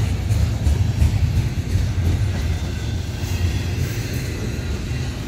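Double-stack intermodal freight train's container well cars rolling past at close range: a steady, continuous rumble of steel wheels on the rails.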